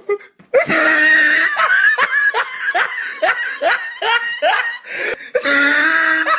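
A person laughing loudly: a run of short ha-ha bursts, each falling in pitch, about two or three a second, with longer drawn-out cries at the start and again near the end.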